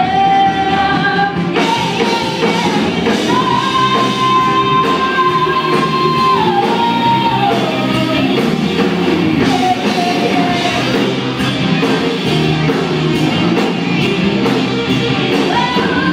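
Live rock band playing, with electric guitars, bass and drums, and a woman singing lead. About four seconds in she holds one long high note that then slides down.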